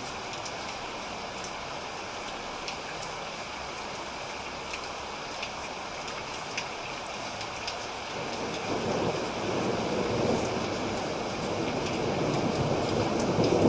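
Steady rain with scattered drops ticking sharply, and a low rumble of thunder building about halfway through and growing louder toward the end.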